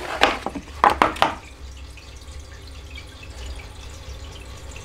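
A wet sponge wiping a glass-ceramic hob, with a few quick wiping strokes in the first second and a half.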